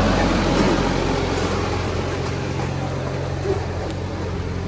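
Engine of road-works machinery running steadily at a constant speed, a low even hum.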